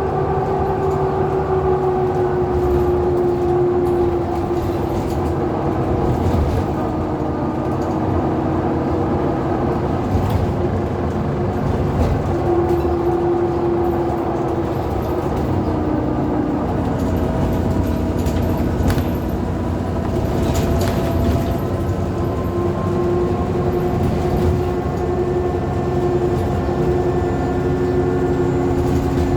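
Alexander Dennis Enviro400 double-decker bus with a Euro 5 diesel engine and Voith automatic gearbox running under way, with the turbo whistle and the loud differential whine over a steady low engine rumble. Several steady tones shift slowly up and down in pitch as the speed changes.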